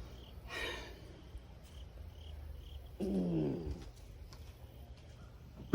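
A short sigh-like breath about half a second in, then a brief groan falling in pitch about three seconds in, over a low steady hum; faint high chirps repeat in the background.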